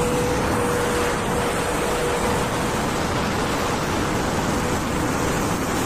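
Truck running with a loud aftermarket exhaust: an even rushing noise, with a steady whine that slowly fades.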